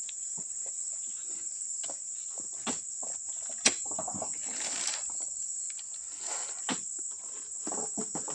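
Steady high-pitched insect drone, with scattered knocks and thuds as a long iron spike is jabbed into oil palm fruit bunches on the ground; one sharp click a little before the middle is the loudest event.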